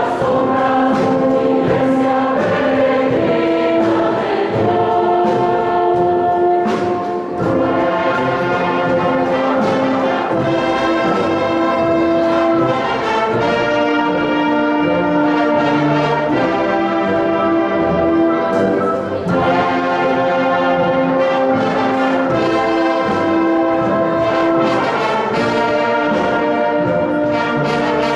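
Mixed choir singing with an orchestra that includes brass, in slow held chords that change every second or two. Sacred music of the Bolivian mission repertoire.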